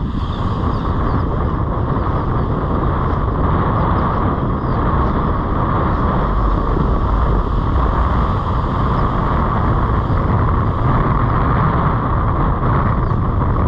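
Steady, loud wind rumble on the microphone over small waves washing up a sandy beach.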